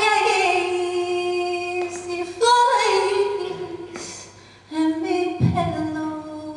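A woman singing a flamenco song unaccompanied, holding long ornamented notes that slide downward. The voice dies away about four seconds in, then takes up another held note, with a single low thump just after it starts.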